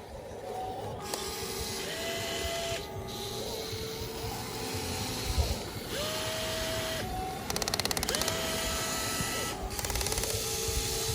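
Small electric motors of a radio-controlled toy excavator whining as its arm and bucket are worked, in a series of short runs that each rise in pitch, hold and drop away, over a scraping, rattling mechanical noise.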